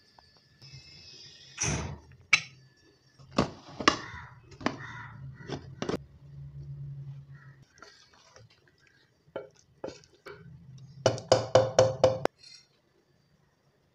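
Kitchen utensil clatter: a ladle and metal vessels knock and clink at irregular intervals. About eleven seconds in, a quick run of six or seven ringing metallic taps comes as the ladle strikes the rim of an aluminium pressure cooker.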